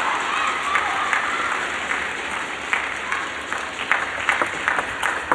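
Spectators in a sports hall applauding a won point, with a cheering shout at the start. The clapping slowly thins out.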